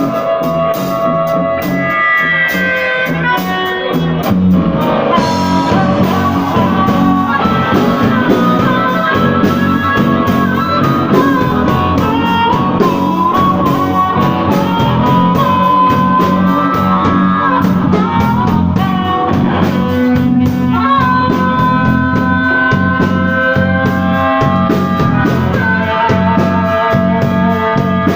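Blues band playing live: melodic guitar lines over a steady bass and drum beat.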